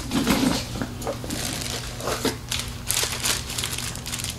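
Hand-handling noises from working on an engine: irregular short bursts of crinkling and scraping over a steady low hum.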